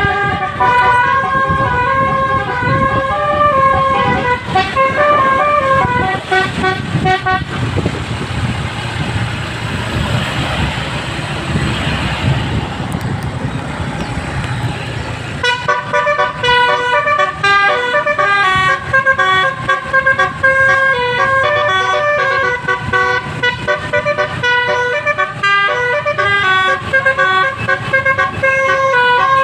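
Indonesian bus's basuri "telolet" multi-tone horn playing a quick stepping melody. It breaks off about seven seconds in for some eight seconds of rushing noise over a low rumble, then plays its melody again.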